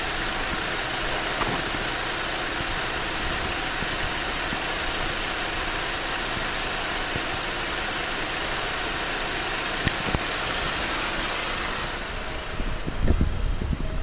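Mercedes-Benz C250 CGI's 1.8-litre turbocharged four-cylinder petrol engine idling steadily, heard from above the open engine bay. About twelve seconds in the engine sound drops away and low knocks and rustles from the camera being carried come in.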